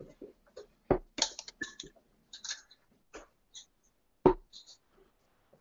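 Steel-tip darts thudding into a bristle dartboard twice, about three and a half seconds apart, with light clicks and rattles between the throws.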